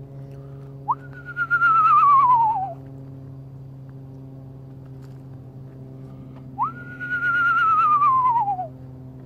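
Two whistled owl-call imitations, a few seconds apart. Each one leaps up sharply, then slides slowly downward with a quaver over about two seconds. A faint steady hum runs underneath.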